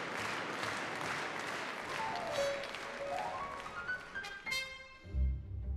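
Concert-hall audience applauding, the clapping fading away over the first few seconds as music comes in: a quick run of notes that dips and then climbs high, followed near the end by low piano notes.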